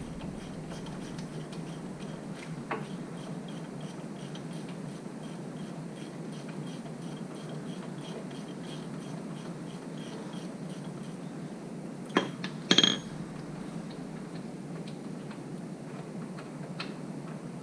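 Hand-tool work on a hub assembly bolt with a shallow 18 mm socket: faint, regular small clicks, then two sharp metal clinks about twelve seconds in, the second one ringing.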